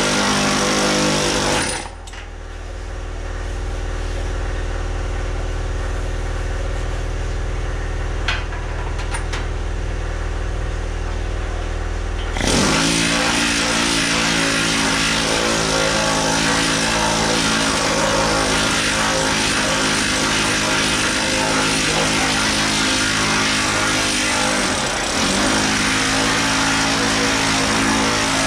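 Pneumatic planishing hammer running steadily, its fast hammering on a welded steel dash panel making a loud, continuous buzz. The sound changes about two seconds in and again about twelve seconds in, and the hammer briefly slows and picks up again near the end.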